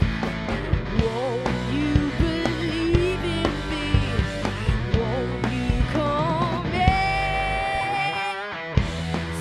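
Rock band playing with a female singer belting over distorted electric guitars and drums. She holds one long high note near the end, and the band briefly drops out just after it.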